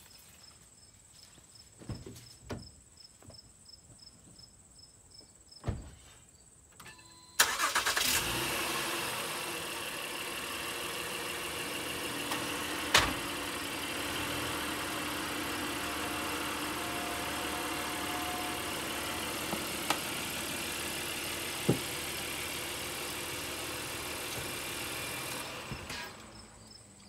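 A Honda Pilot's 3.5-litre V6 is started about seven seconds in, idles steadily while the SUV is backed off its ramps, then is switched off shortly before the end. There are a few clicks and a thump before it starts and a couple of sharp knocks while it runs. Crickets chirp in the quiet before and after.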